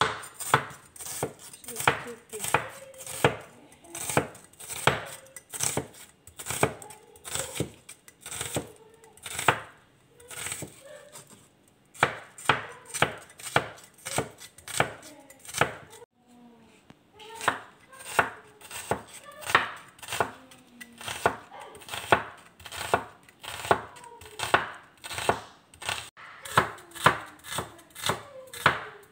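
Cleaver slicing an onion on a wooden cutting board: the blade knocks the board in steady chops, about two a second, with a brief pause about halfway through.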